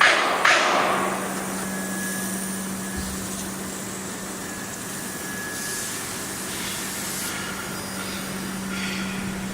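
Automatic submerged arc welding equipment running: a steady mechanical hum under a noisy hiss. Two short, loud hissing bursts come in the first second.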